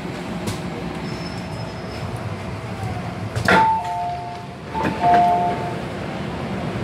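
MTR M-Train rumbling as it slows into a station. A sharp knock comes about three and a half seconds in, then a two-tone high-low door chime sounds twice as the doors open.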